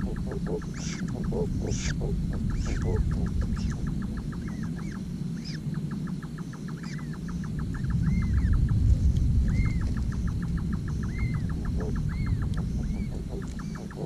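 Animal calls at night: a fast ticking trill in repeated bursts of one to two seconds, with short rising-and-falling chirps in the second half, over a steady low rumble.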